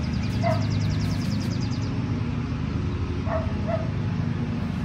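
A dog barking: one bark about half a second in, then two quick barks a little past three seconds, over a steady low hum.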